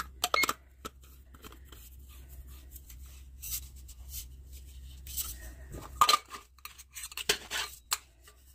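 Handling noises from a stainless-steel thermos: clicks, taps and scrapes as its lid is screwed on over the steeping tea, with a faint low hum underneath that stops about six seconds in.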